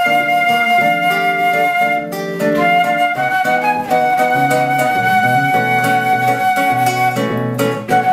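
Silver concert flute and nylon-string classical guitar playing a duet: the flute holds long melody notes, one of about two seconds, then after a short break one of about four seconds, over plucked guitar chords.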